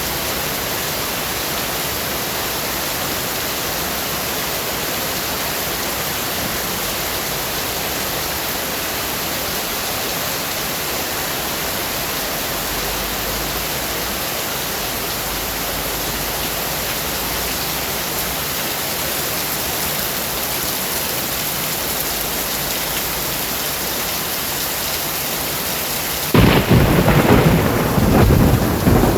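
Steady hiss of rain. Near the end a sudden loud thunderclap breaks in and rumbles on.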